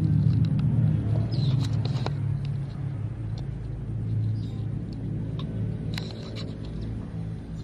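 A low, steady engine-like hum that slowly fades, with scattered faint clicks and rustles.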